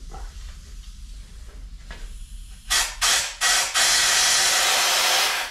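Compressed-air blow gun hissing in three short blasts, then one steady blast of about two seconds that stops abruptly, blowing out a clogged engine breather pipe to clear the last of the carbon and oil sludge.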